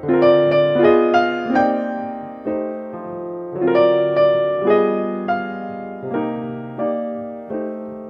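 Solo piano background music, a gentle melody of separate notes with short runs near the start and again midway.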